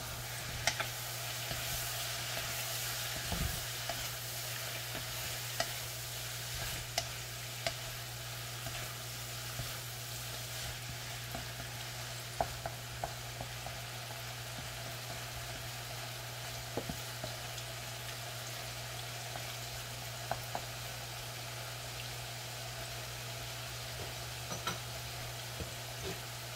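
Food sizzling in a frying pan, with scattered clicks and scrapes of a utensil stirring it, over a steady low hum.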